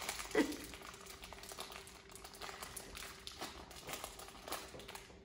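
A plastic blind-bag packet crinkling and rustling in a child's hands, in short irregular crackles.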